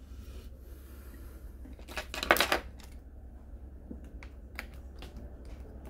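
Laptop battery pack clattering as it is set down on the opened laptop's chassis about two seconds in, followed by a few small plastic clicks of parts being handled, over a low steady hum.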